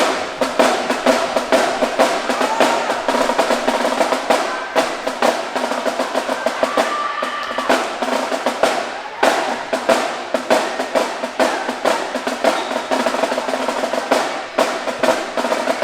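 Marching band drumline playing a fast snare-led cadence, dense rolls and rapid strikes throughout.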